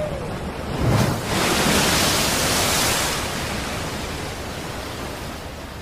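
Strong wind and rough sea, with a low thud about a second in followed by a louder rushing surge that slowly fades over the next few seconds.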